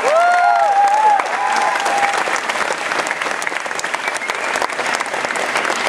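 Concert audience clapping and cheering after a song, with a few whooping shouts in the first two seconds.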